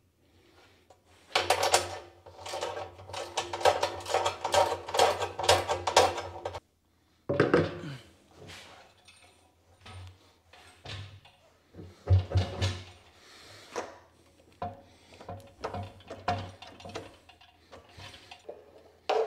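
Hand socket ratchet clicking rapidly as bolts holding the mixer blades are tightened through a plastic cement-mixer drum, stopping abruptly. This is followed by scattered knocks and clunks as the plastic drum is handled and fitted to the mixer's frame and drive motor.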